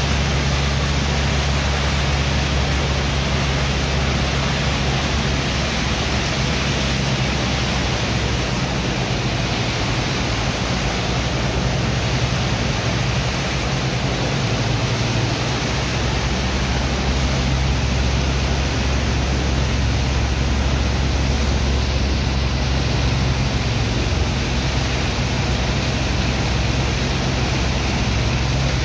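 Steady rush of high-pressure water jets from hoses blasting into wet sand, washing it into a slurry, over a steady low machinery hum.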